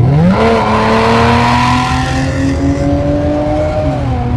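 Lexus V6 engine and exhaust under hard acceleration. The pitch climbs quickly in the first half second, keeps rising slowly as it pulls, then drops about four seconds in.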